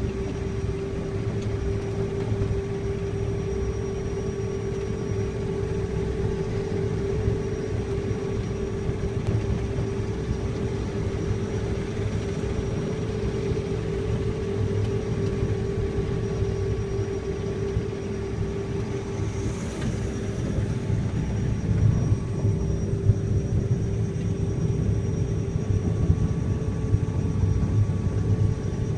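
Self-propelled windrower running steadily while cutting canola, heard from inside the cab: a low engine drone with a constant hum over it, a little louder in the last third.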